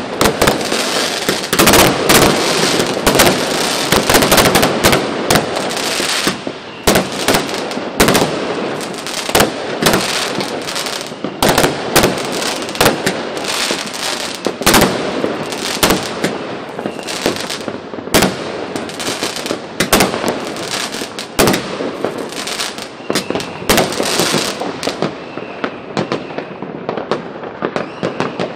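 Fireworks and firecrackers going off without a break: a dense, irregular run of sharp bangs and pops, several a second, over a continuous crackling din.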